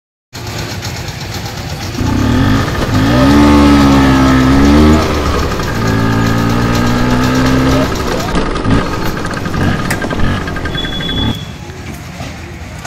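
Motor scooter engine running as it rides in, its pitch rising and falling for a few seconds, then holding steady before it dies away about eight seconds in.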